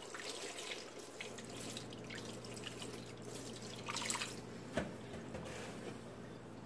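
Distilled water mixed with rubbing alcohol poured from a plastic gallon jug, trickling and dripping faintly over a telescope mirror in a plastic dish rack, with a brief louder splash about four seconds in. The pour stops about five seconds in.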